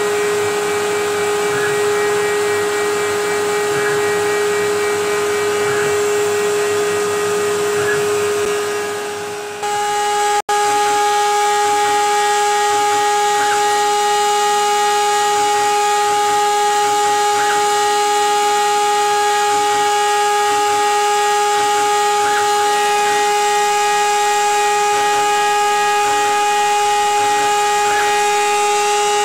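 CNC router spindle whining at a steady high pitch while milling polystyrene sheet, over the steady hiss of the dust-extraction vacuum. The sound dips and cuts out for an instant about ten seconds in, then carries on with a second, higher tone added to the whine.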